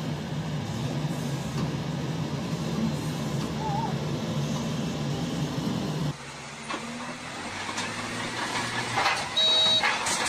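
Heavy diesel machinery engines running with a steady low hum. About six seconds in, the sound cuts to a crawler bulldozer's scene, quieter at first, with loud noisy bursts and a brief high tone near the end.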